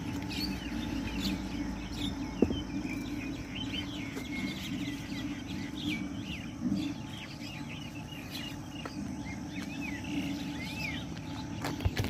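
A flock of starlings calling, many short overlapping chirps and whistles, over a steady low background hum.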